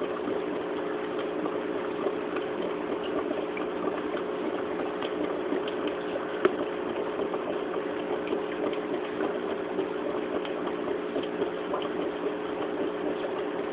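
Aquarium pump running with a steady hum and a constant crackle of bubbling water, with one sharp tick about halfway through.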